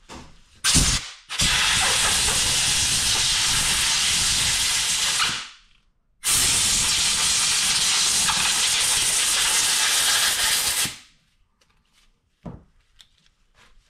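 Compressed-air blow gun blasting: a short burst, then two long steady blasts of about four seconds each with a brief pause between, blowing metal filings off freshly filed steel tools.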